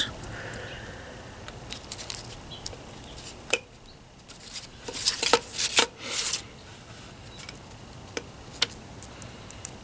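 Light clicks and taps as a printed circuit board is handled and a soldering iron works its joints, with a few brief scraping rushes about five to six seconds in.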